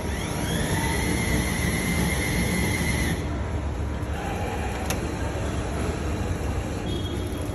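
Bin-bag vending machine running its dispensing motor: a whine that rises in pitch, holds, and cuts off sharply about three seconds in. About five seconds in, a shorter lower motor tone and a click as the auto-open delivery hatch opens, over a steady low hum.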